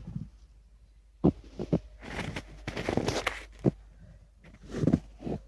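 Packed snow crunching and scraping with a few sharp knocks and a dull thump, as snowballs are handled and rolled and people walk in the snow.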